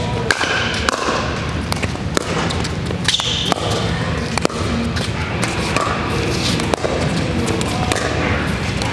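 Pickleball paddles striking a plastic pickleball during a doubles rally: an uneven run of sharp pops, a dozen or so, over a steady low hum.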